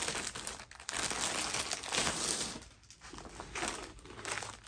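Plastic wrapping on a rolled diamond painting canvas crinkling as it is handled and pulled open. It is loudest for the first two and a half seconds, then turns to softer, scattered crinkles.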